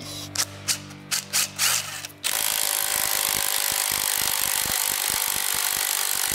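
A few short clicks and knocks, then about two seconds in a cordless drill starts and runs continuously under load with a rapid ratcheting clicking.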